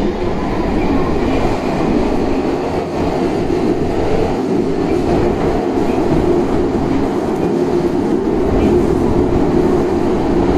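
Running noise of a Tokyo Metro 9000-series train (set 9105F) at speed: a steady rumble of wheels on rail with a humming tone that grows stronger toward the end.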